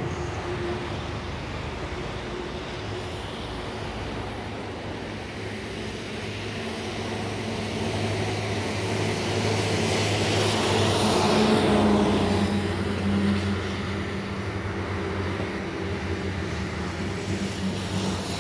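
Airbus A330 freighter's jet engines on final approach, a steady rumble mixed with road traffic, swelling to its loudest a little past the middle.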